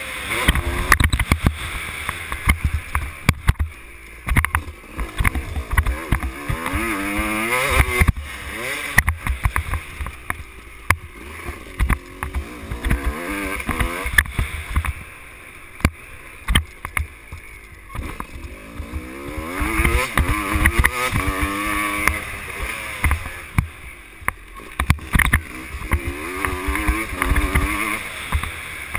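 Dirt bike engine under way on a motocross track, its pitch climbing and falling again several times as the rider opens and closes the throttle, with wind rumble on the microphone and short knocks.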